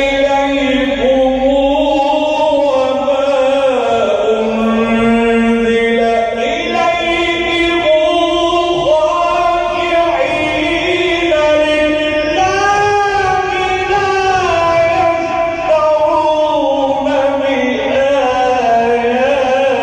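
A reciter chants the Quran in a melodic, drawn-out style, with one voice holding long ornamented notes that glide up and down without a break.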